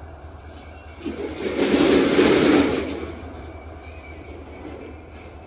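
Container freight train running along the track with a steady low rumble. About a second in, a loud rushing swell rises and dies away over roughly two seconds.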